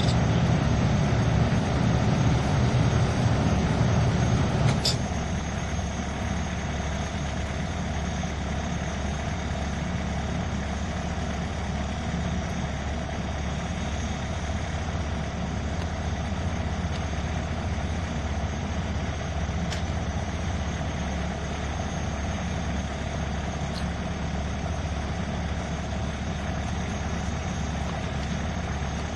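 An engine idling steadily, louder for about the first five seconds and then settling to a lower steady hum, with a few faint clicks.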